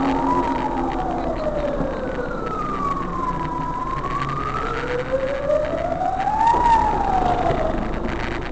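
Emergency-vehicle siren wailing, slowly rising and falling in pitch. It peaks near the start and again about six and a half seconds in. The car's engine and road noise run steadily underneath, heard from inside the moving car.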